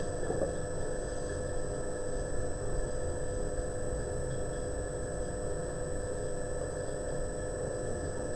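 Steady electrical hum with several fixed tones, including a faint high whine, over low background hiss.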